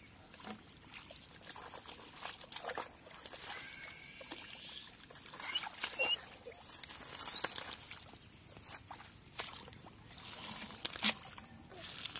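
Feet and hands working through shallow muddy water and water hyacinth: irregular wet sloshes, squelches and leaf rustles, with a sharp snap about eleven seconds in. A few faint high chirps come through near the middle.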